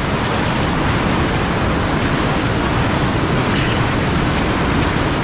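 Whitewater rushing loudly and steadily over a rapid's pour-over, splashing right against the microphone around a pinned kayak.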